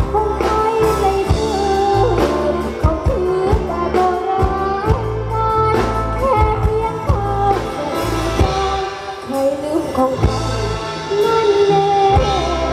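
A luk thung band's song with a singer's sliding, ornamented melody over bass and drums, heard through a PA system.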